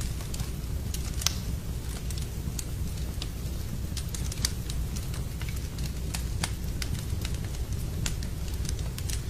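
Wood fire in a fireplace crackling: irregular sharp pops over a steady low rumble, with a louder pop about a second in and another near the middle.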